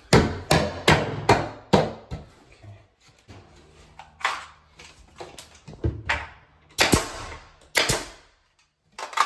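Hammer blows on wood: a quick run of about five strikes in the first two seconds, then single knocks spaced a second or so apart.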